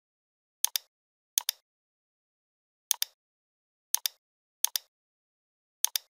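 Computer mouse button clicked six times at uneven intervals. Each click is a sharp double tick, the press and then the release, with silence between.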